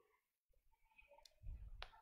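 Near silence: room tone, with a faint click near the end.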